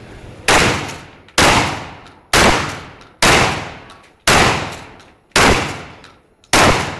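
Shotgun fired seven times in quick succession, about one shot a second, each blast trailing off in a fading echo.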